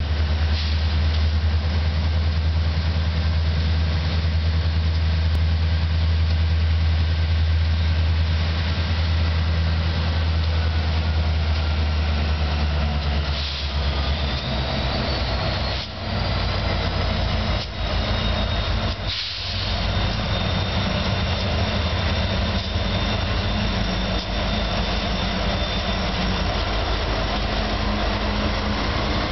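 CSX freight train led by an EMD SD70ACe diesel-electric locomotive, whose 16-cylinder EMD 710 two-stroke diesel drones steadily as the train approaches. About halfway through, the sound turns to a broader rumble with thin high ringing from the rails, and near the end the lead locomotives pass close by.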